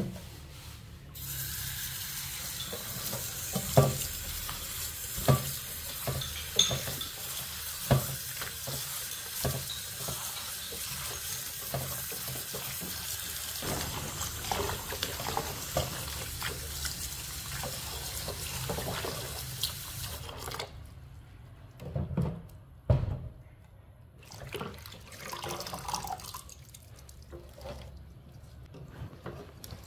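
Tap water running into a stainless steel bowl in a sink while a hand swishes flower petals in the water, with sharp knocks now and then. The water stops about two-thirds of the way through, leaving a couple of thumps and quieter handling sounds.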